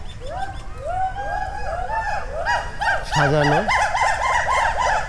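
A group of animals calling loudly: rapid, overlapping rising-and-falling whoops, several a second, swelling in the second half. A short deeper cry comes in about three seconds in.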